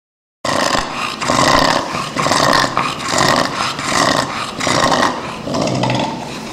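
Bulldog breathing with loud, noisy snoring, about two breaths a second: the stertor of brachycephalic syndrome, in which an overlong, overthick soft palate partly blocks the entrance to the windpipe.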